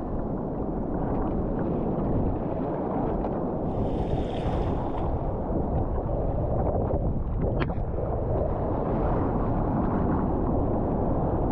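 Gale-force wind buffeting the microphone in a steady low rumble over water rushing around a sea kayak in surf, with a brief hiss about four seconds in.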